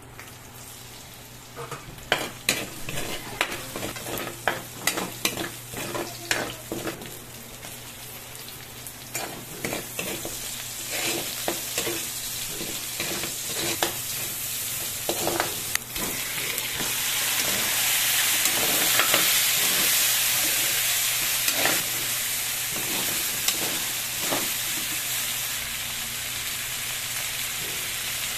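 Food frying and sizzling in a pan while a utensil stirs and scrapes against the pan in quick clicks and knocks. About sixteen seconds in, the sizzle swells louder and steadier and the stirring thins out.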